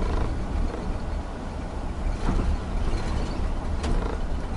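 Coach's diesel engine running with a steady low rumble and road noise, heard from the driver's seat inside the cabin while under way.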